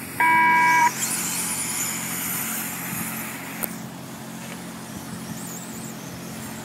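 A loud electronic race-control beep sounds for under a second, then a pack of RC sprint cars' motors whine high and wavering as the cars run around the dirt oval. A single sharp click comes about halfway through.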